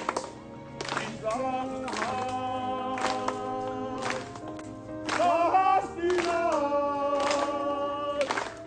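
Singing in long held notes, over a sharp clap or beat that falls about once a second.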